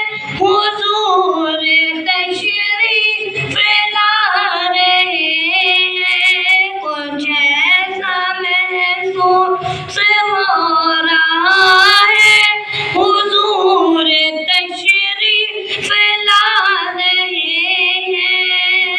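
A boy's high voice singing a naat unaccompanied, long ornamented lines with wavering held notes.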